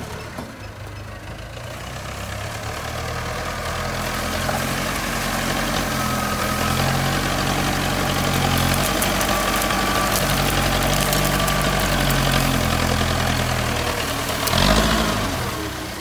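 JCB backhoe loader's diesel engine working under load, revs and loudness building over the first few seconds and then holding steady while the front bucket pushes brush and rubbish. There is a brief louder surge near the end.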